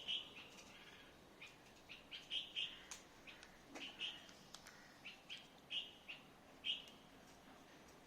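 Faint bird chirps: short, high notes repeated irregularly, roughly one or two a second, with a few light clicks between them.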